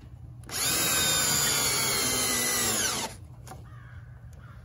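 Cordless drill running under load for about two and a half seconds, a steady high whine that drops in pitch as it stops.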